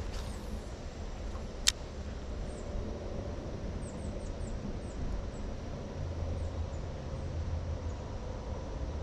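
Outdoor creek ambience: a steady low rumble, one sharp click about two seconds in, and a run of faint, short, high chirps that fall in pitch.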